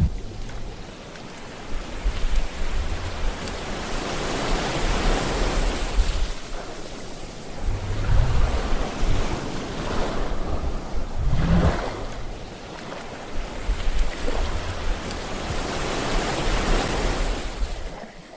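Sea waves breaking and washing up on the shore, the surf swelling and falling away every few seconds, with a low rumble under each surge.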